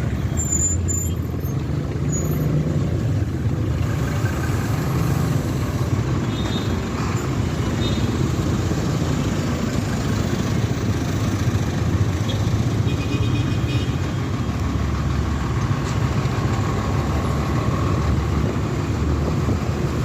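Steady low rumble of road traffic and vehicle engines on a street.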